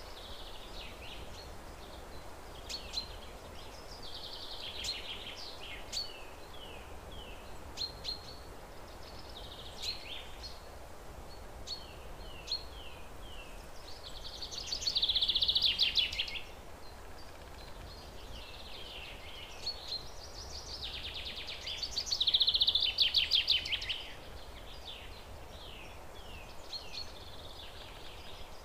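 Birds singing: a stream of short chirps and quick falling notes, with two louder rapid trills about halfway through and again about three-quarters of the way in, over a steady low outdoor background noise.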